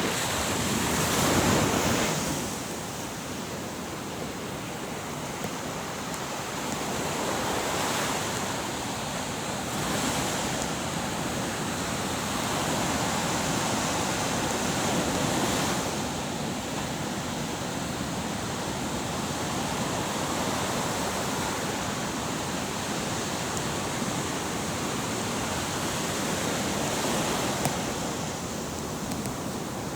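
Waves washing in: a steady rush of noise that swells and eases every few seconds, loudest about a second in.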